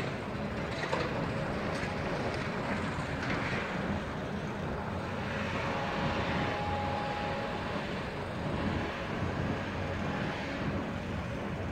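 Diesel demolition excavators running with a steady low engine drone, a few faint knocks in the first few seconds and a brief thin whine around the middle.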